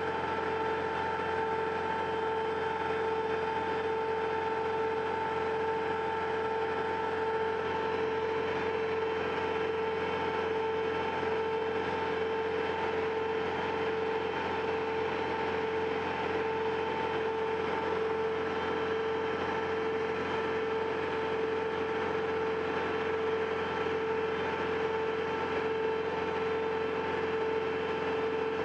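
Marine travel lift running while hauling a boat out of the water: a steady engine hum with a constant whine that does not change.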